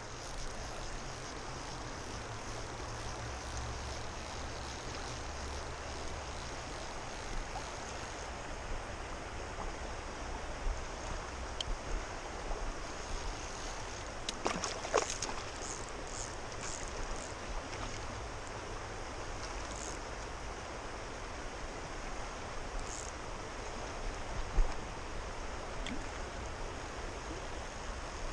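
River current rushing steadily over a rocky riffle, with a few brief clicks and knocks about halfway through and one sharper knock near the end.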